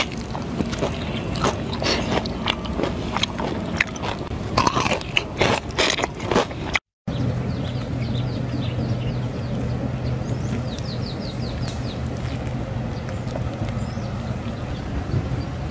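Crispy battered fried chicken drumstick being bitten and chewed close up, in quick irregular crunches of the crust. After a sudden break about seven seconds in, the crunching gives way to a steady low hum with a few faint high chirps.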